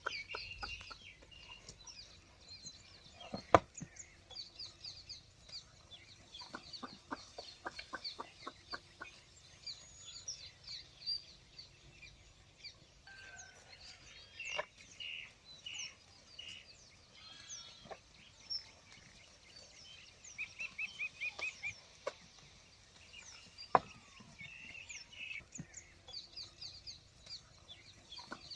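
Birds chirping and a hen clucking in short calls. Two sharp knocks stand out, one a few seconds in and one about two-thirds of the way through.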